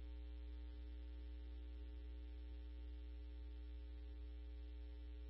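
Faint steady electrical hum with a few steady tones over it on an open scanner radio channel, carrying no voice between dispatch transmissions.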